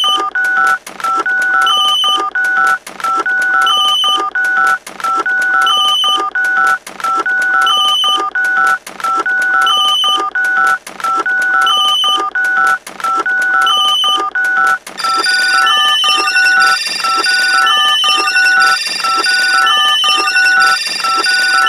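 Electronic soundtrack loop of telephone-like beeps and tones. A two-note figure alternates over and over above a steady lower tone, with a higher beep about every two seconds. More high-pitched tones join about fifteen seconds in.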